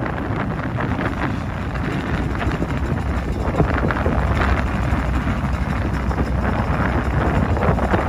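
Strong wind buffeting the microphone over the steady running of a small trawler's engine.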